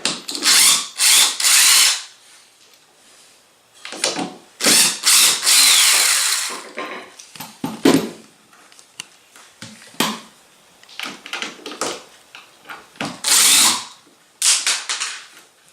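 Power drill-driver run in repeated short trigger bursts, backing the screws out of the lower door hinge so the hinge can be shimmed, with small clicks and knocks between the bursts.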